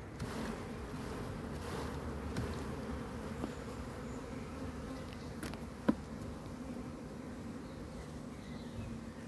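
Honeybees buzzing in a steady hum around an open hive, with a single sharp click about six seconds in.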